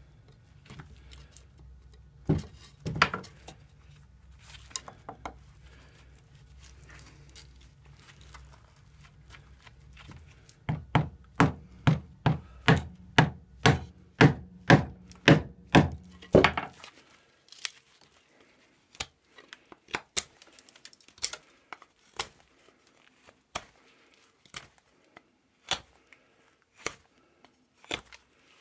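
Rubber mallet hammering the spine of a small neck knife to drive it through a wooden branch (batoning, as a hard test of the knife). There are two loud knocks early, then a quick, even run of about a dozen heavy blows, two a second, that stops about 16 seconds in. After that come lighter, sharper knocks about once a second.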